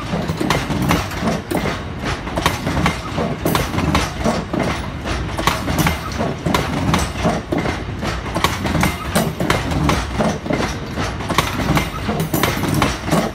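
Loaded bogie hopper wagons of a stone train rolling past, their wheels clicking and clattering over the track over a steady rumble.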